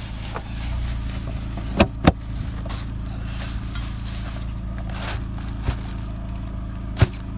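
Car engine idling steadily. Over it come sharp knocks from a plastic cooler's lid being shut and handled, two close together about two seconds in and another near the end.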